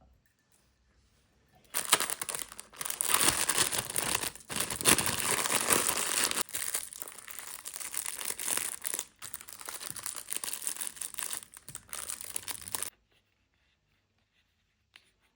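Packaging being crinkled and torn open by hand, an irregular rustling and ripping that starts about two seconds in and stops abruptly about two seconds before the end.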